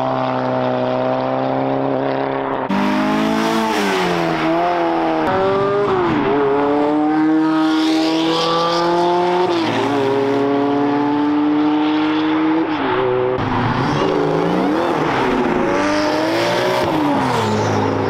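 Several performance cars accelerating hard away in turn, each engine revving up through the gears: the pitch climbs, drops at each upshift, then climbs again.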